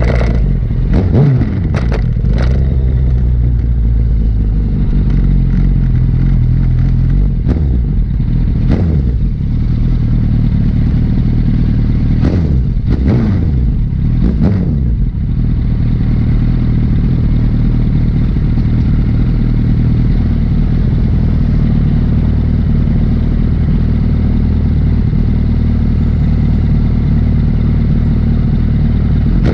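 Liter-class sportbike engine running under way. Its pitch rises and falls several times in the first fifteen seconds, with a few sharp cracks among the changes, then it holds a steady cruise.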